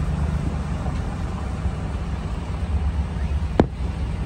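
One sharp bang from a firework shell bursting, about three and a half seconds in, over a steady low rumble.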